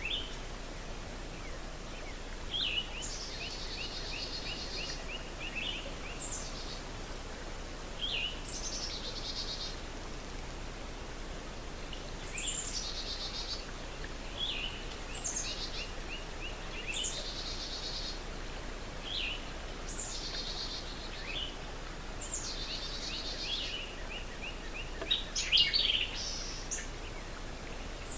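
Songbirds singing over a steady outdoor hiss: sharp high down-slurred notes, rapid trills of short repeated notes and buzzy phrases, recurring every couple of seconds, with the loudest calls near the end.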